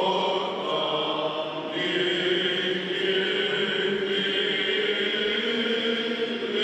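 A group of male cantors singing Greek Orthodox Byzantine chant without accompaniment, in long held notes; the melody moves to a new note about two seconds in.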